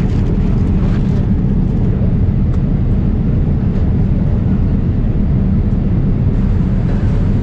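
Steady low rumble of a Boeing 787 Dreamliner in flight, heard inside the economy cabin: engine and airflow noise.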